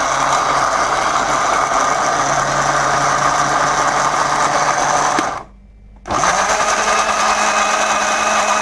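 Electric blender running loud and steady as it grinds chopped onions into a paste. It stops briefly about five seconds in, then starts again with a rising whine as the motor spins back up.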